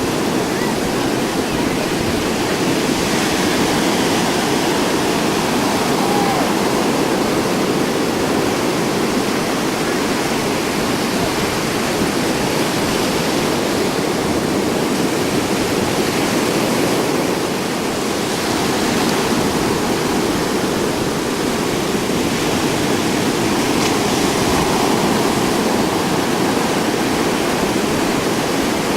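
Rough, storm-driven surf breaking with wind: a steady rushing wash that swells louder now and then as waves come in.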